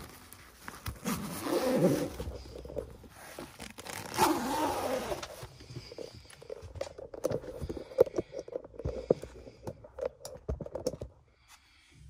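Soft camo carry bag rustling and crinkling as it is handled and packed, with scrapes and small knocks and clicks. It goes quiet briefly near the end.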